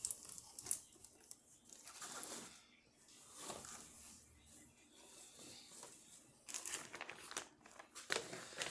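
Costume packaging crinkling and rustling in irregular bursts as it is handled and rummaged through.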